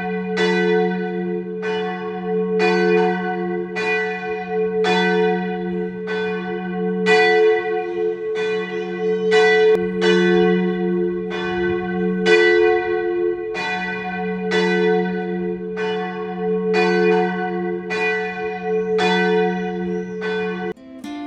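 Church bell ringing, a steady run of strokes roughly three every two seconds over a sustained low hum; it stops near the end as acoustic guitar music begins.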